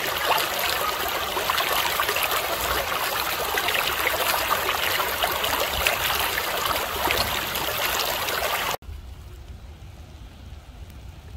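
Floodwater rushing over rocks in a rain-swollen wadi, a loud steady rush. About nine seconds in it cuts off abruptly to a much quieter scene.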